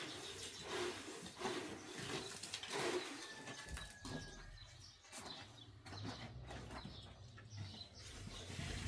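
Animal and bird calls in the open, with short irregular sounds early on and a faint low rumble in the second half.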